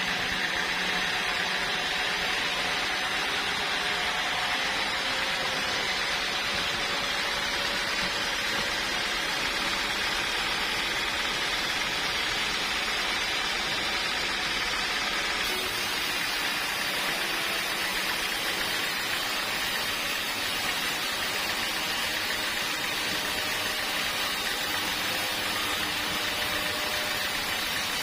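Sawmill machinery running with a steady, even noise, without distinct cuts, knocks or changes in pitch.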